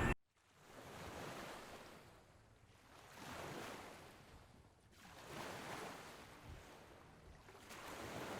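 Soft wash of water in gentle waves, swelling and fading about every two seconds.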